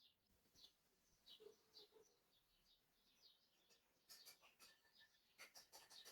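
Near silence with faint, short high chirps of small birds repeating about every half second, and a cluster of faint clicks near the end.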